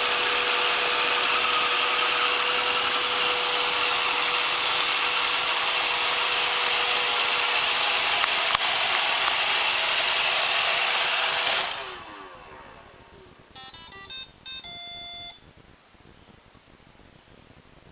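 iRobot Roomba robot vacuum running steadily with a held hum, then shutting off about twelve seconds in and winding down. A short electronic beep tune follows, as the Roomba plays when docking at its charging base.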